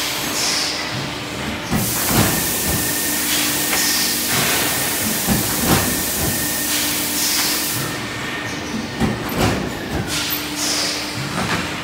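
Plastic-lid punching press at work: a steady machine hum with clunks as the loaded tray slides in and out and the press strokes. A loud hiss runs from about two seconds in until about eight seconds.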